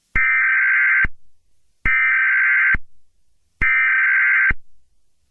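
Emergency Alert System SAME header: three bursts of digital data tones, each just under a second long, with short gaps between them. These bursts signal the start of an emergency alert.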